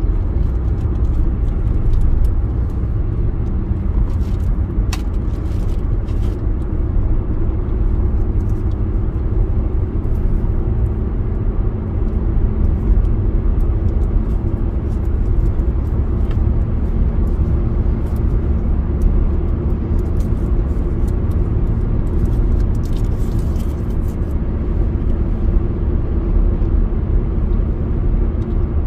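Car driving at highway speed: a steady low rumble of tyre, road and engine noise that does not rise or fall.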